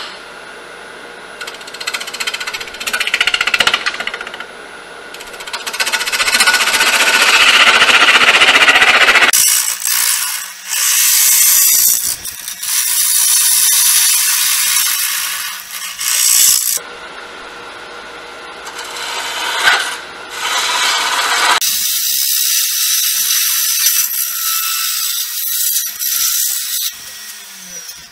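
Turning tool cutting into a spinning wood blank on a Grizzly G0800 wood lathe: a loud hissing scrape of wood being cut away, squaring the end of the blank. It comes and goes in a series of cuts with short breaks as the tool is pressed in and eased off.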